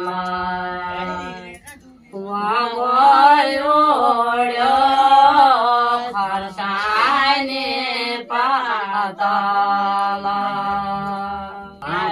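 Women singing an unaccompanied Uttarakhand phag, a traditional folk song for auspicious occasions, in slow phrases of long held notes. The singing breaks briefly about a second and a half in, then the next line starts.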